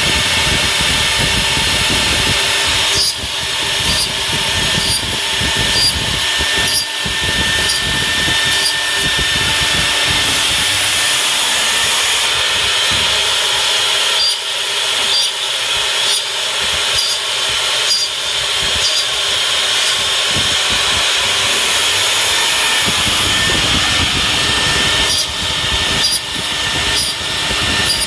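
WMD-300N CNC dovetailing machine running, its router spindle cutting square tenons in wood: a steady high whine with noisy cutting, broken by short dips and clicks every few seconds.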